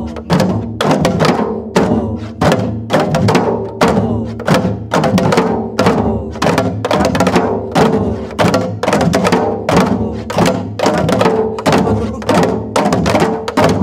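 A group of janggu (Korean hourglass drums) played together in a traditional jangdan rhythm cycle: sharp stick strokes and deeper hand strokes, the strongest about two a second, on a steady beat.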